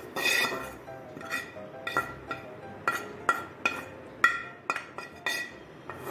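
Steel spoon knocking and scraping vegetables out of a non-stick frying pan: a dozen or so irregular metallic knocks, each leaving the pan ringing briefly.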